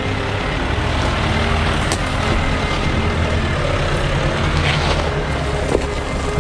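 A 4WD's engine running steadily while driving, with a few light knocks and clicks over it.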